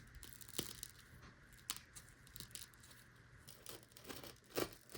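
Faint, scattered crackling and crunching from the crisp, blistered crust of a freshly baked bagel as it is handled or cut, with a small cluster of crackles near the end.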